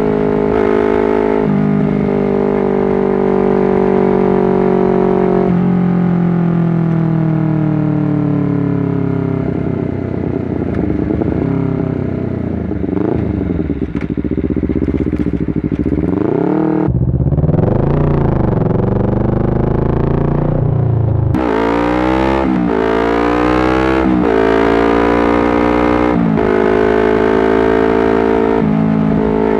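Honda CBR250RR engine slowing with pitch falling in steps as it downshifts through the first half, running low and uneven for a few seconds, then accelerating hard through a run of quick upshifts, each rising pitch dropping off at the shift.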